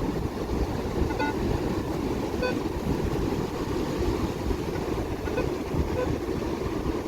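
Metal detector sweeping over beach sand, giving a few short beeping target tones at irregular intervals, over a steady low rumble of noise.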